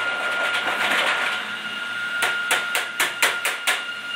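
A toy tool banging on a plastic toy workbench: a quick run of about seven sharp knocks over a second and a half, about halfway through. A steady high-pitched whine runs underneath.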